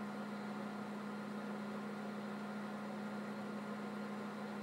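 IBM 5100 computer running: a steady hum with an even fan whoosh underneath.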